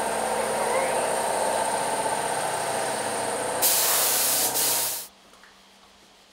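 Compressed-air paint spray gun hissing over a steady machine hum; about three and a half seconds in a louder, brighter burst of spray hiss lasts about a second and a half, then the sound cuts off suddenly.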